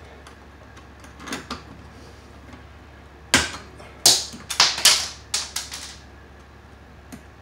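Lineman's pliers clicking and snapping as they grip and twist No. 10 bare copper ground wires together: a quick run of sharp clicks about three to six seconds in, with a few fainter ones before and after.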